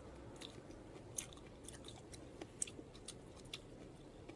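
A person biting and chewing a stalk of cooked leafy greens: faint, irregular crunchy clicks and mouth sounds.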